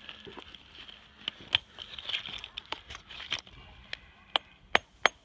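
Pieces of raw Kyoto natural whetstone (su-ita) clinking and knocking against each other as they are handled, with gritty scraping and crunching between. Several sharper, briefly ringing clinks come near the end.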